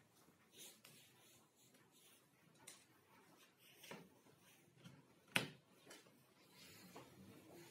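Faint handling of a thin wooden runner strip in a table saw's aluminium miter slot: light taps and rubbing, with one sharp knock about two-thirds of the way through.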